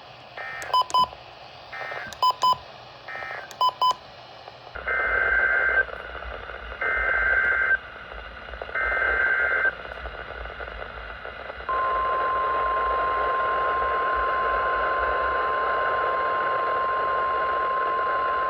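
NOAA Weather Radio Emergency Alert System tones over a radio receiver. First come three short warbling SAME data bursts, the end-of-message code closing the previous warning, then three longer SAME header bursts announcing the next alert. About twelve seconds in, the steady 1050 Hz weather radio warning tone starts and holds over radio static.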